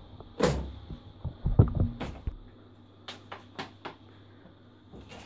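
Homemade slime being handled over a glass mixing bowl on a table: a few dull thumps and knocks in the first couple of seconds, then a few lighter clicks.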